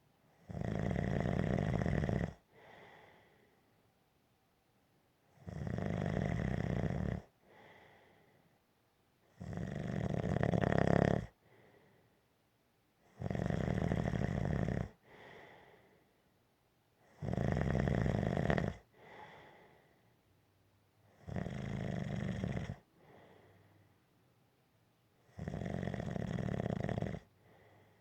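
Gentle snoring in a slow, even rhythm: seven long snores about four seconds apart, each followed by a fainter, shorter breath.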